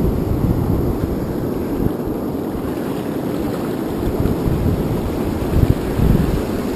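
Wind buffeting a GoPro's microphone in a low, gusty rumble, over the wash of breaking surf.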